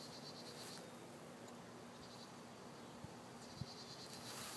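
Faint outdoor background hiss with a faint high-pitched buzzing near the start and again near the end, and two soft clicks about three seconds in.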